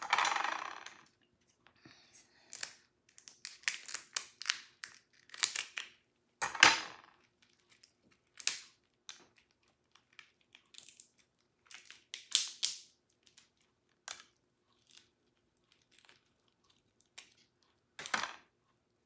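Cooked lobster tail shells being cracked and pulled apart by hand: irregular sharp cracks and crackles, the loudest about six and a half seconds in.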